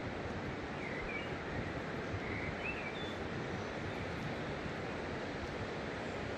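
Steady rushing outdoor background noise with a few short, faint bird chirps about one second and three seconds in.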